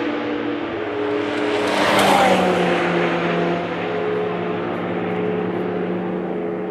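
Race cars passing at speed. About two seconds in, one car goes by close and its engine note drops in pitch. After that comes a steady engine note from cars running at speed.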